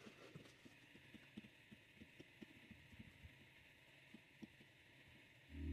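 Near silence: faint room tone with scattered soft clicks, then background music cuts in at the very end.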